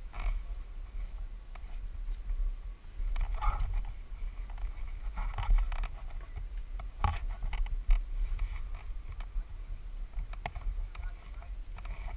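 Wind buffeting a helmet-mounted camera's microphone as an uneven low rumble, with scattered scuffs and knocks every second or two.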